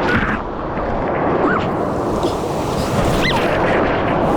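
Whitewater rapids on the Zambezi River rushing and crashing around a raft, with wind buffeting the microphone. A few short yelps from the rafters break through, about a second and a half in and again past the three-second mark.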